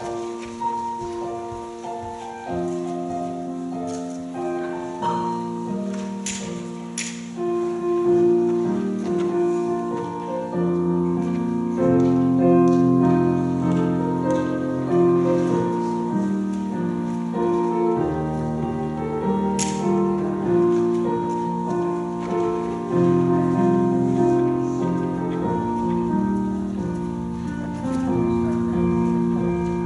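Slow, quiet keyboard music of sustained chords that change every second or two, with a deeper bass line coming in about ten seconds in. A couple of faint clicks sound over it.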